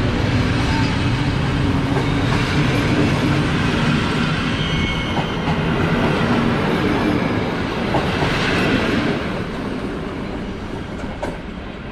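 Passenger coaches of a train hauled by an EU07 electric locomotive rolling past on the rails, with steady wheel-on-rail noise. The sound fades away after the last coach goes by, about nine seconds in.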